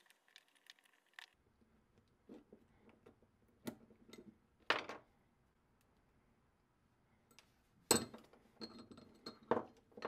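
Small steel parts of a vintage Craftsman ratchet clicking and clinking as they are handled and fitted together by hand, with a few louder sharp clinks, the loudest about five and eight seconds in.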